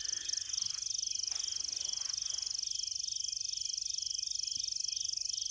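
Night chorus of crickets: a steady high trill with a fast, even pulse, and a lower call underneath pulsing a few times a second.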